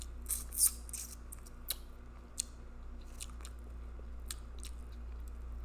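Close-up mouth sounds of eating: chewing and smacking clicks, a cluster of louder ones in the first second, then scattered softer ones, over a steady low hum.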